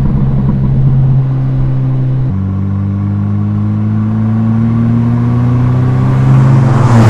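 Mercedes-AMG SL 43's turbocharged 2.0-litre four-cylinder engine pulling under acceleration. About two seconds in its pitch drops with a gear change, then climbs steadily again. Near the end a broad rush of noise swells over it.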